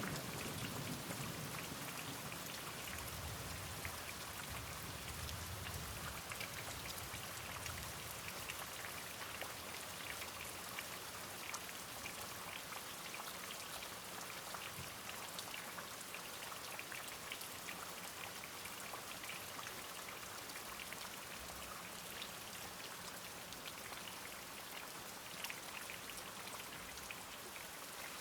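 Steady rain falling, many small drops ticking against a surface, with the low rumble of distant thunder dying away over the first several seconds.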